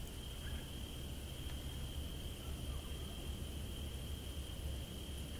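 HO-scale Via Rail Budd car model running slowly on the layout track: a low rumble with a steady high whine.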